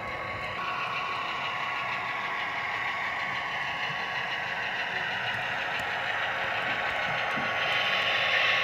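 Model railroad diesel locomotive running slowly along the layout: a steady engine-like drone with some mechanical whine, getting louder near the end.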